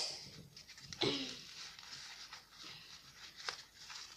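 Paper crinkling and rustling as a small taped paper package is handled and squeezed into shape, with a louder crinkle about a second in and a few small sharp clicks.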